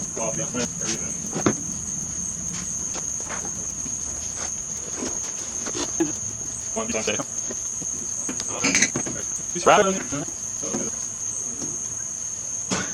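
Crickets trilling steadily, with scattered metal clinks and knocks from hands-on work fitting a spring on a mower deck.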